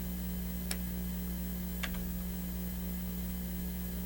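Two sharp clicks about a second apart, over a steady low electrical hum.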